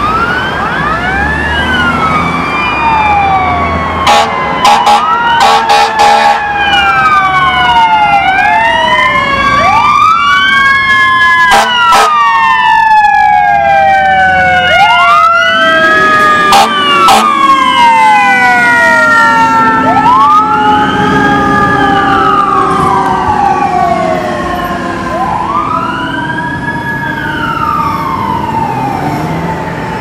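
Fire truck siren wailing up and down over and over, with a second long siren tone slowly falling in pitch, as the ladder truck approaches, passes close and pulls away. There are short air horn blasts about four to six seconds in. The sound is loudest in the middle and fades near the end.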